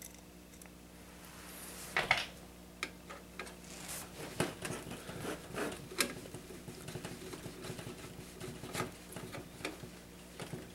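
A mounting screw being driven into the side of an optical drive through the metal 5.25-inch drive bay of a PC case: irregular light metal clicks and scrapes, with a louder knock about two seconds in.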